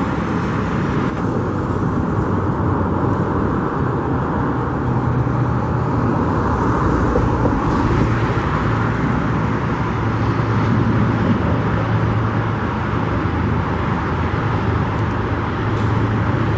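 Steady road traffic noise, with the low drone of passing vehicles swelling and easing.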